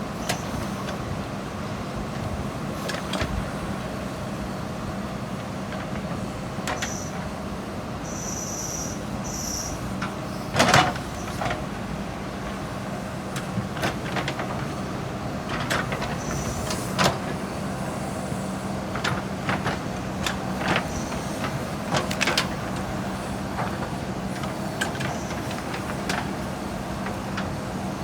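JCB 3DX Super backhoe loader's diesel engine running steadily at work, with scattered sharp clanks and knocks throughout, the loudest about a third of the way in, and a few short hisses.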